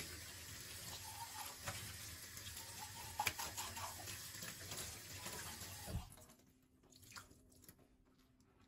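Water running from a tap into a sink, with a few knocks in the stream, shut off sharply about six seconds in; faint clicks follow.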